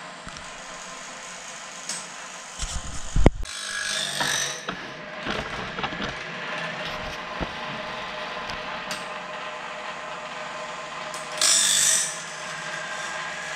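Woodland Mills bandsaw blade sharpener running, grinding the teeth of a sawmill bandsaw blade: a steady motor hum with irregular passes of the grinding wheel and a few knocks from the mechanism. The loudest grinding and knocking come about three seconds in, and a short, harsher grinding burst comes near the end.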